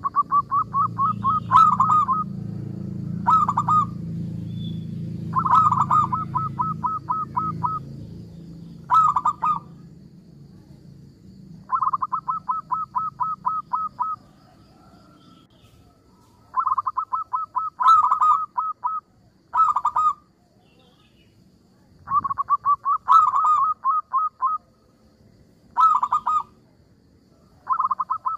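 Zebra dove (perkutut) singing: bursts of rapid staccato cooing notes, roughly ten a second, long phrases alternating with short ones and separated by brief pauses. A low background rumble fades out after about eight seconds.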